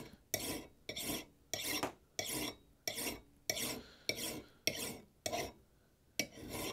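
Flat file rasping across the steel corner of a hewing axe head in steady back-and-forth strokes, a little under two a second, with a brief pause about five and a half seconds in. The corner is being filed down to square it.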